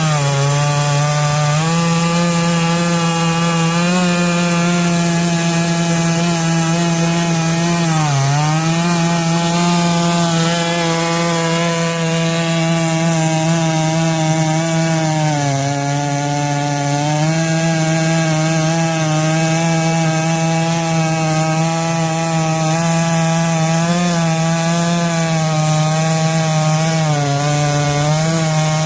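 Stihl MS660-clone two-stroke chainsaw running at high revs while cutting lengthwise through an oak log on a chainsaw mill. Its steady pitch sags briefly a few times as the chain loads up in the cut, then recovers.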